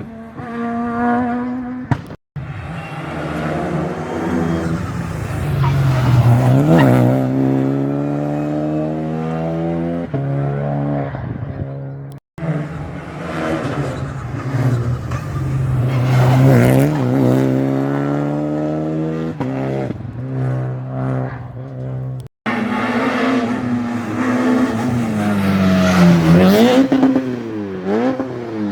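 Rally cars driven flat out on a special stage, one car per clip, in four short clips cut together. Each engine revs hard, its pitch climbing and then dropping sharply through gear changes as the car passes.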